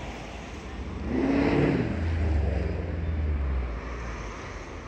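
Low-floor tram passing close by on street track: a whine that falls in pitch as it goes past, then a low rumble that fades after a couple of seconds.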